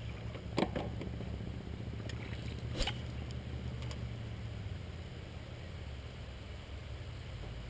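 Low steady rumble on a small aluminum fishing boat, with two sharp knocks about two seconds apart.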